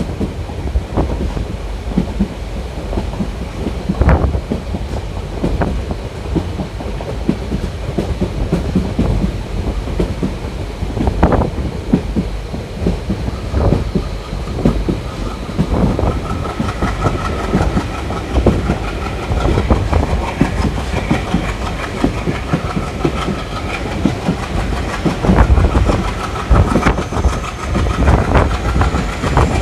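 Passenger train coach heard from on board while running, wheels knocking irregularly over rail joints. A faint high whine joins in about halfway through.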